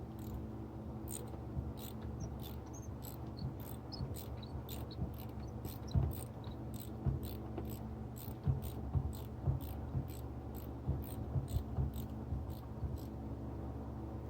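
A long, even series of short high-pitched chirps, about two or three a second, over a steady low hum, with a few dull knocks in between.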